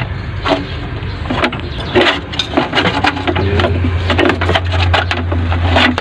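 Clicks and knocks of a rubber drive belt being worked off an engine's pulleys by hand. A steady low hum comes in about halfway through.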